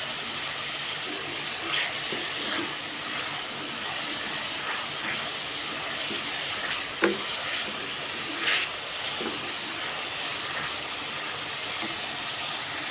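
Minced meat sizzling steadily as it fries in hot oil in an aluminium pot, stirred with a wooden spoon that scrapes against the pot a few times.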